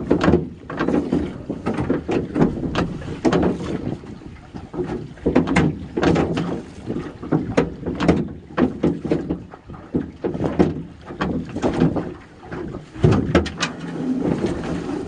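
A fishing net being hauled by hand over the side of a small metal boat: irregular knocks and clatter against the hull, with water sloshing and splashing.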